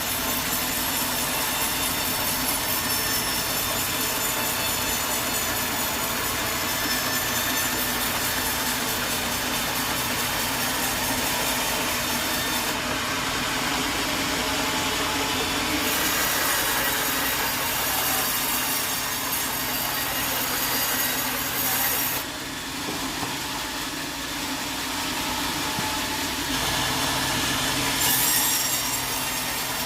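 Sawmill saw cutting through wood, a continuous grinding noise over a low machine hum. Its high end changes several times as the cut goes on.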